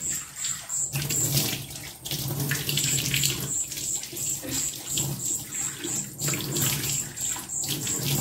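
Kitchen tap running into a metal sink while someone washes their hands and face under it, the water splashing unevenly.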